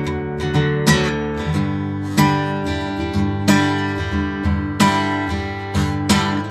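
Background music: acoustic guitar strumming and plucking chords with a steady rhythm.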